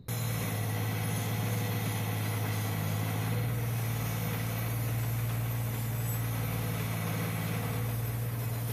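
Bench grinder running steadily with a constant hum, a metal bracket held against its spinning wheel and scraping against it as the metal is cleaned down for painting.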